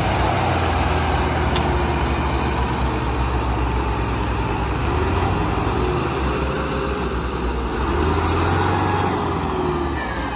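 Diesel tractor engines working hard under load as one tractor tows another, with its loaded trolley, out of mud on a chain; the engine pitch rises and falls a few times as the throttle changes.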